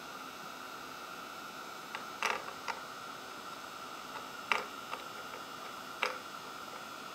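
Craft heat gun blowing with a steady hiss while drying water off a piece of clay, with four short taps as the piece is touched on the ceramic tile.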